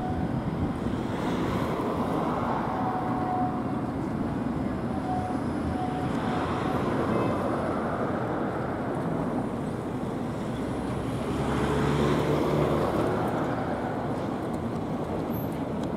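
Škoda 26T low-floor electric tram rolling in on its rails and slowing to a stop: a steady running rumble, with a low hum standing out for a couple of seconds near the end as it brakes.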